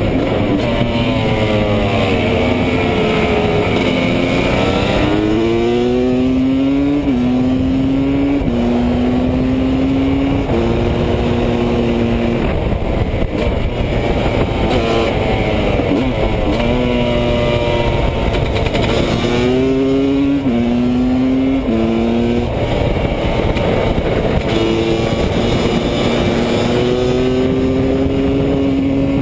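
Husqvarna WR300 two-stroke single-cylinder motorcycle engine at racing speed, heard from on board: it revs up and steps down in pitch at each gear change, again and again, and falls away when slowing for corners, over a steady rush of wind.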